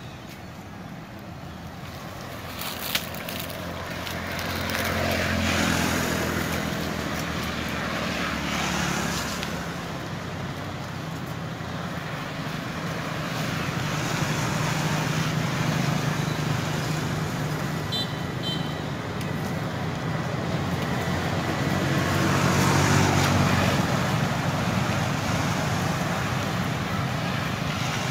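Road traffic: motor vehicles passing one after another, their engine noise swelling and fading every few seconds.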